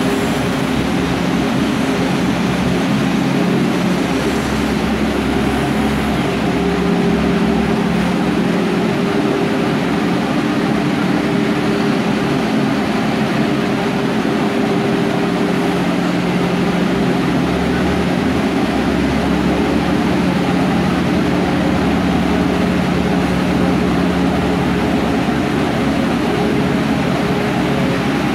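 Diesel power pack of a multi-axle self-propelled modular transporter running steadily under load as it carries a ship's hull block, a constant engine drone with a low rumble underneath.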